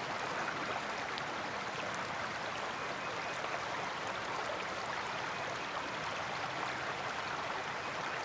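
Creek water running steadily over stones.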